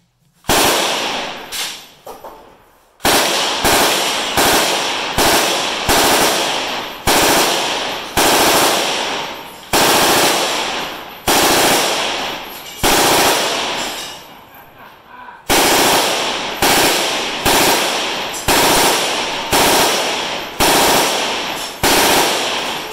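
Machine gun, taken by the shooter for a Russian PKM, firing a long string of short fully automatic bursts in quick succession, each ringing off under the range roof. There is a pause of about a second and a half roughly two-thirds of the way through.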